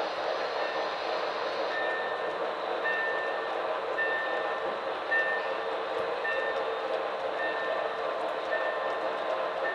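Model railroad freight cars rolling past on the layout: a steady running noise with a short, high tone repeating about once a second.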